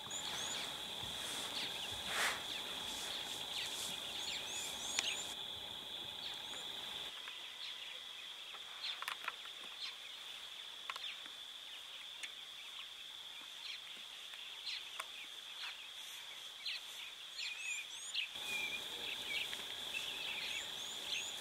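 Bushveld ambience: a steady high-pitched insect drone with many short bird chirps over it.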